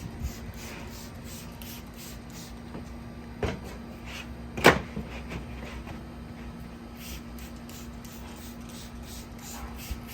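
Workshop handling sounds: two sharp knocks about three and a half and four and a half seconds in, the second the loudest, with a few lighter taps over a steady low hum.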